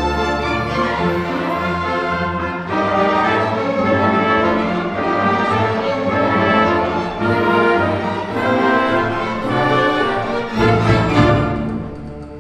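Orchestral music with strings and brass playing together, swelling to its loudest shortly before the end and then easing off.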